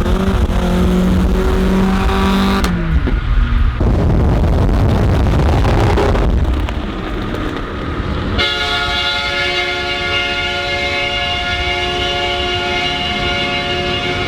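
Car engines and exhausts running loud on the road. About eight seconds in, a multi-tone train-style air horn starts sounding a steady chord of several held notes and goes on without a break.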